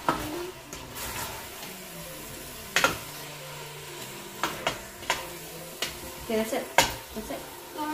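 A long black cooking spoon stirring pasta in sauce in a stainless steel pot, knocking against the pot's side in a string of sharp clicks, the loudest about three seconds in and near the end.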